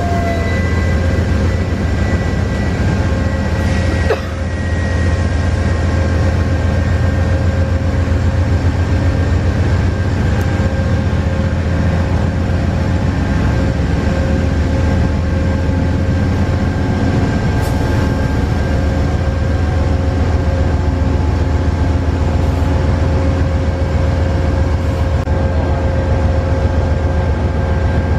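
Amtrak Amfleet II passenger coaches rolling past at close range: a steady, loud rumble of wheels on rail with a deep drone and a few steady higher tones. There is a single sharp click about four seconds in.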